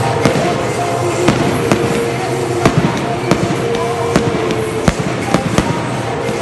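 Fireworks going off: a string of sharp cracks and bangs at irregular spacing, roughly two a second, over a continuous noisy hiss and rumble.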